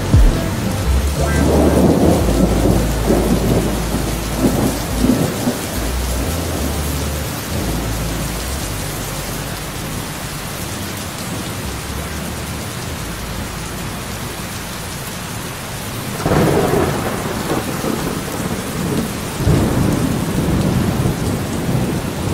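Steady rain falling, with thunder rumbling in two long rolls: one near the start and another beginning about three-quarters of the way through.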